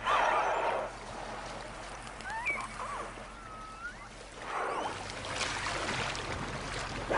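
Killer whale calls: a few short, squeaky rising and falling whistles about two to three seconds in and again near five seconds, over a steady rush of water.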